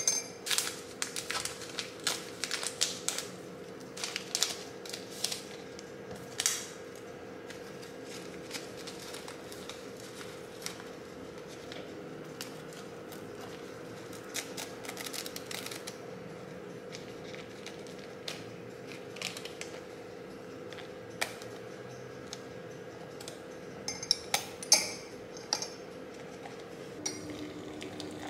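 A metal teaspoon clinking against a glass mug while stirring honey: a quick run of light clinks over the first several seconds, then scattered clicks as a paper drip-coffee packet is handled. A steady faint hum runs underneath.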